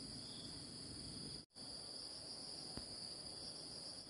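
Steady, faint chorus of insects chirring in a continuous high-pitched hum. The sound cuts out completely for a moment about a second and a half in.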